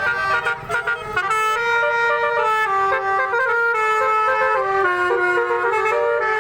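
Telolet horns, multi-tone musical car horns, playing a tune: several tones sound together as a chord that steps up and down in pitch, each note held briefly.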